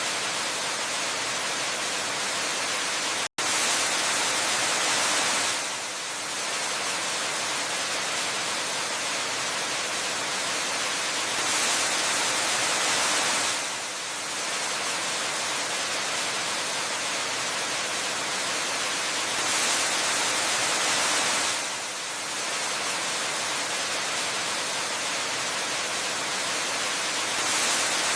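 Waterfall water rushing in a steady hiss, swelling a little louder every eight seconds or so, with a split-second dropout a few seconds in.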